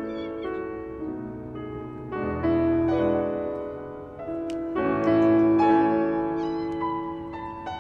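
Solo piano music, with a cat's faint meows over it near the start and again near the end.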